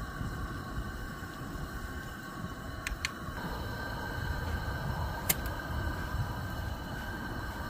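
Steady hiss and low rumble of a gas camp stove burning, with a few light clicks of cookware being handled and one sharp tap about five seconds in.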